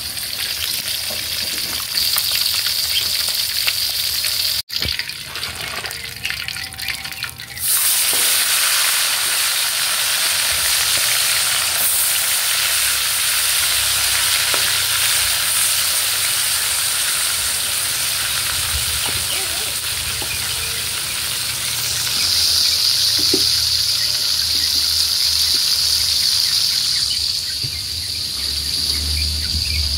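Whole fish deep-frying in hot oil in a wok: a steady, loud sizzle. It breaks off briefly about five seconds in and comes back louder about eight seconds in.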